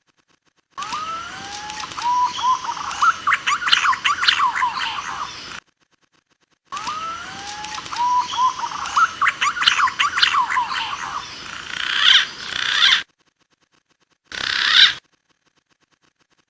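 Green pigeon (punai) calls played back as a hunting lure: each phrase opens with sliding whistles and runs into a quick chatter of higher notes. The same phrase plays twice, cut apart by dead silence, with a short snatch near the end.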